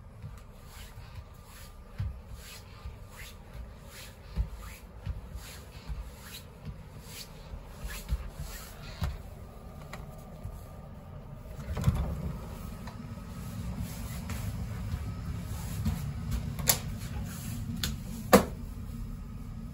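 Footsteps walking steadily along the aisle of a railway coach, then a knock as an interior door is worked, and near the end two sharp latch clicks, the second the loudest.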